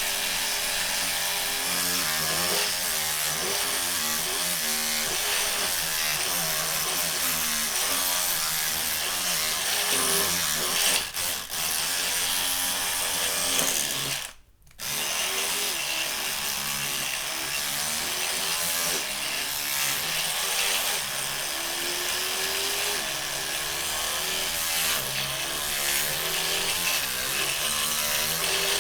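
Oral-B Smart 2000 electric toothbrush running with a steady buzz whose pitch wavers up and down. It cuts out briefly about halfway through, then carries on.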